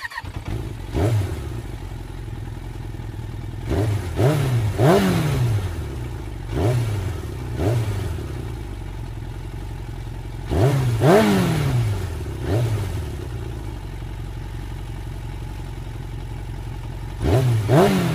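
Sport motorcycle engine idling, with short sharp throttle blips over and over, often two or three close together. Each rev rises and drops back quickly to idle.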